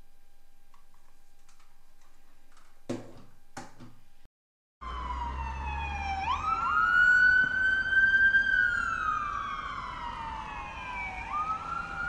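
Two light knocks, then after a short gap an FDNY ambulance's electronic siren sounding a slow wail. The pitch dips, jumps up, climbs slowly, falls slowly, then rises again near the end, with the truck's engine rumbling underneath.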